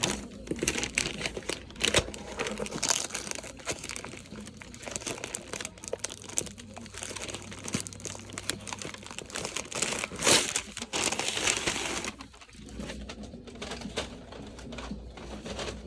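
Packing material crinkling and rustling as a parcel is unpacked by hand, with scattered small clicks and a louder spell of rustling about ten seconds in.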